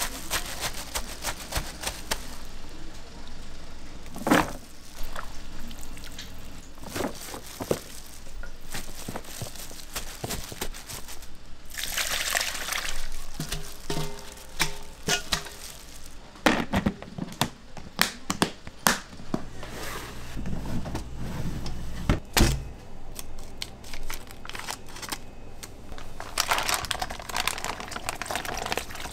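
Gloved hands mixing and squishing seasoned julienned radish in a large stainless steel bowl: wet squelching, plastic gloves crinkling, and a few sharp knocks against the bowl. Partway through, the radish is scraped out of the bowl into a plastic container.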